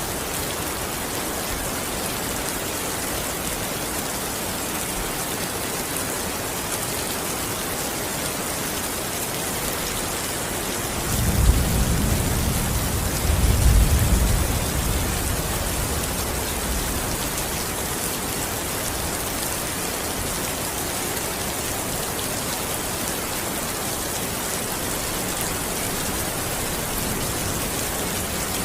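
Steady heavy rain falling, an even hiss throughout. About eleven seconds in, a low rumble of thunder swells twice over a few seconds, then fades back under the rain.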